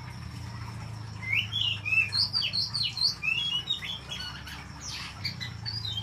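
Oriental magpie-robin singing: a fast run of varied whistled and chattering notes starting about a second in, thinning to scattered notes after about three and a half seconds.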